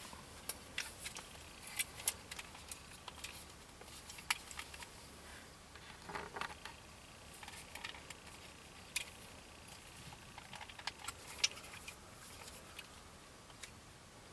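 Irregular faint clicks and small knocks, with a short rustle about six seconds in: handling noise close to the microphone.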